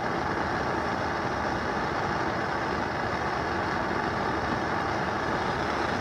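Propane burner's blue flame burning with a steady, even rushing noise as it heats a paper cup of water close to the boil.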